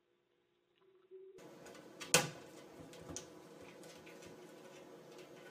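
Kitchen cabinet door being pulled at by a cat's paw: one sharp wooden knock about two seconds in as the door swings back against the frame, then lighter clicks and taps.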